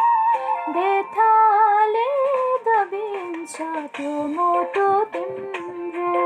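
A woman singing solo, her melody gliding and stepping between notes, with instrumental backing music under her voice.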